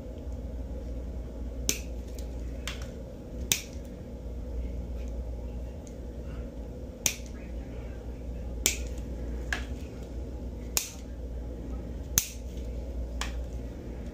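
Steel toenail nippers cutting a thick, fungus-thickened toenail: about nine sharp snaps at uneven intervals as the jaws clip through the nail, piece by piece.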